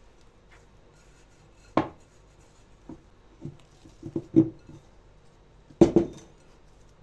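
Bread dough being worked in a glass mixing bowl: a sharp knock of the glass bowl about two seconds in, then a run of softer knocks and thuds as the bowl is lifted and tipped. Near the end comes the loudest knock and thud as the dough is turned out onto the stone countertop.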